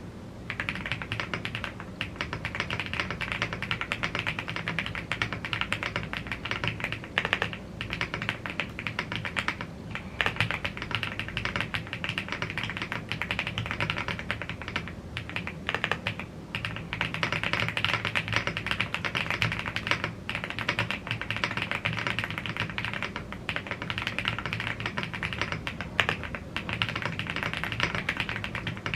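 Fast, continuous typing on a YUNZII AL75 aluminium-cased, gasket-mounted mechanical keyboard with Blue Grey tactile switches and double-shot PBT Cherry-profile keycaps. It is a dense stream of key clacks with a few brief pauses.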